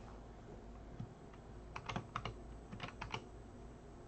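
Typing on a computer keyboard: about nine short keystrokes in quick runs between one and three seconds in.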